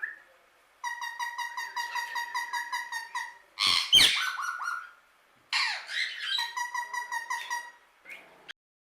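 Bird calls: a fast run of repeated notes, about eight a second, broken by a louder, harsher sweeping call, then a second fast run; a short faint call near the end and then the sound stops.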